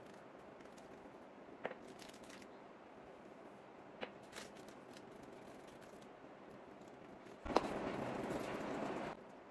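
Glass spice jars and their lids knocking lightly a few times as they are handled, then a sudden steady rubbing, scraping noise lasting about a second and a half near the end that stops abruptly.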